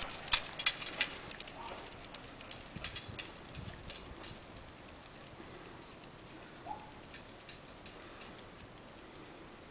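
Dogs' claws and a dog-drawn cart clicking and ticking on asphalt, loudest in the first second and fading over the next few seconds to faint scattered ticks as the cart moves away.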